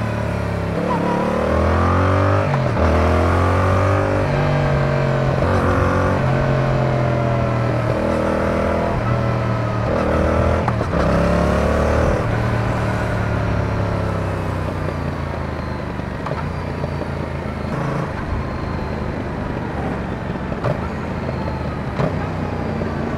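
Yamaha XSR700's 689 cc parallel-twin engine running through an Akrapovic carbon full-system exhaust with the dB killer removed. Over about the first twelve seconds it accelerates through several upshifts, the pitch climbing and then dropping at each shift. After that it runs at lower, steadier revs as the bike slows.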